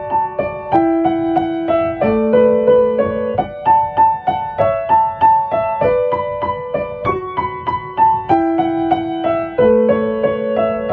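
Solo piano music: a melody of struck notes, several a second, over sustained chords that change about every second or two.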